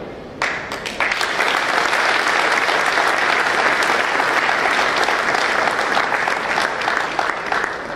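Audience applauding: many people clapping at once, starting about half a second in, swelling to full strength about a second in, then holding steady.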